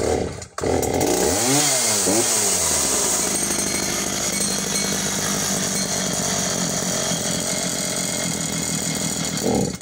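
Homelite 340 Classic 54cc two-stroke chainsaw pull-started with the choke off: it catches about half a second in, revs up and down twice, then runs steadily at idle before cutting out near the end.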